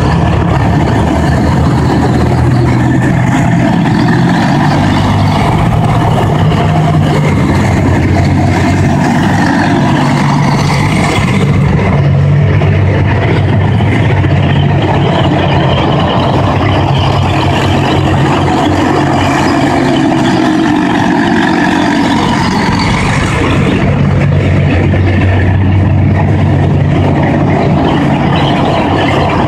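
Engines of tracked armoured vehicles running loudly and steadily as a column of them drives past, with a low engine note that shifts a little in pitch.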